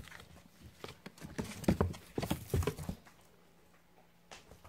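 Irregular hollow knocks and thumps on cardboard, a quick cluster from about one second in that stops near three seconds: cats scrambling about inside a cardboard box.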